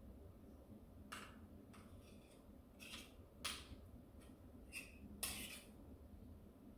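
Spoons scraping and clicking against a mixing bowl as cupcake batter is scooped out: about seven faint, short scrapes spread over a few seconds.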